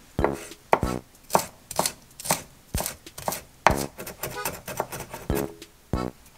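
Kitchen knife mincing Italian parsley on an end-grain wooden chopping board: sharp chopping strikes of the blade on the wood, about two a second at an uneven pace.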